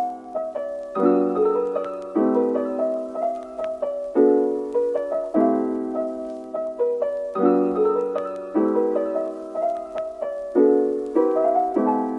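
Soft background piano music: gentle chords struck about once a second, each left to fade.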